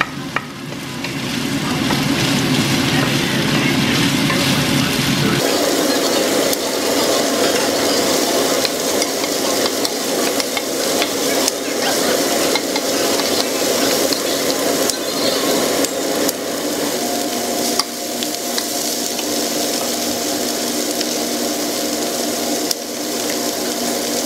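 Diced chicken, onion, bell peppers and mushrooms sizzling in a stainless steel skillet while being stirred with a wooden spoon. The spoon gives frequent small clicks and scrapes against the pan.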